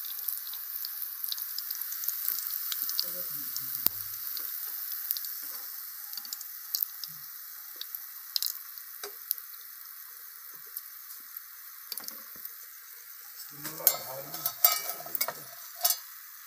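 Hot oil sizzling and crackling in a kadai around battered bottle gourd slices frying in buckwheat-flour batter; the sizzle slowly dies down. Near the end, sharp metal clicks and scrapes of the spoon against the pan.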